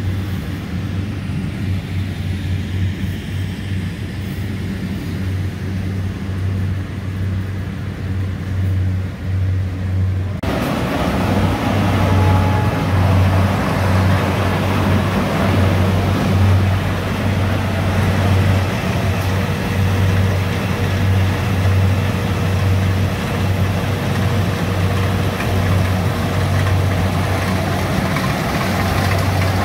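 Diesel engine of a tracked rice combine harvester running steadily under load while it cuts and threshes rice, with a constant low hum. About ten seconds in the sound jumps to a nearer, louder harvester with a fuller rushing noise over the hum.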